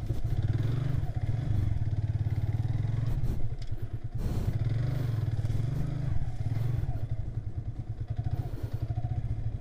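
Motorcycle engine running steadily as the bike is ridden along a rough dirt track.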